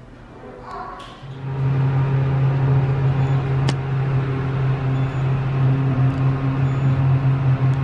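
Passenger elevator car running, a loud steady low hum that sets in about a second in and holds as the car rides up.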